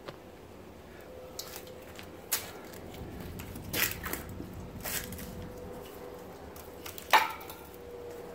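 Handling noises: scattered clicks and brief rustles, the loudest a sharp clink about seven seconds in, over a faint steady hum.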